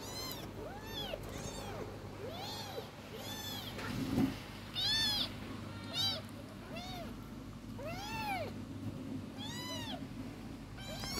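Kittens mewing over and over: short, high calls that rise and fall in pitch, coming about every half second to a second. There is a dull thump about four seconds in.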